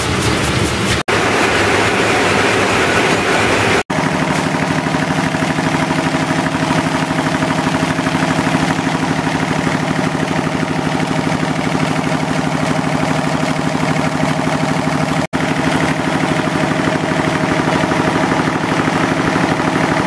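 Sheet-fed offset printing press running at production speed: a steady loud machine noise with a fast, even mechanical rhythm as sheets feed into the delivery stack. It breaks off briefly three times, about one, four and fifteen seconds in.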